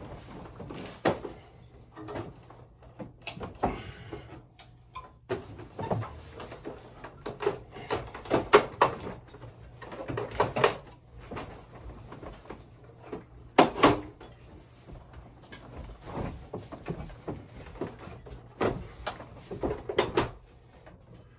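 Irregular knocks, clunks and scrapes of a Daikin ductless mini-split indoor unit's casing being handled and pressed onto its wall mounting bracket, with the sharpest knocks about eight and a half and fourteen seconds in.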